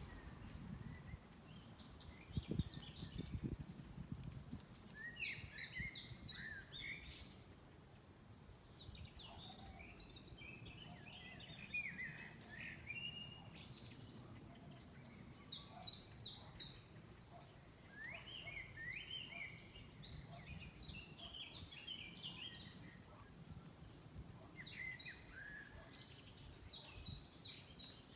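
A songbird singing in repeated phrases a few seconds long, each mixing sliding whistled notes with fast high trills, with short pauses between phrases. A steady low rush of wind in the tree runs underneath.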